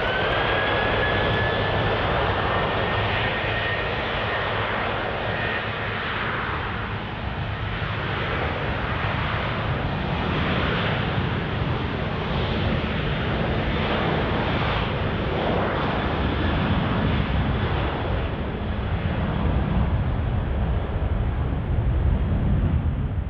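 Jet airliner engines at high thrust: a whine that climbs in pitch in the first second or so, then holds steady over a broad, even jet noise that keeps going.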